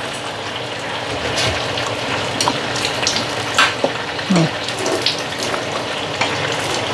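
Chicken and onion sizzling steadily as they fry in a pan, with a few small clicks and taps scattered through it.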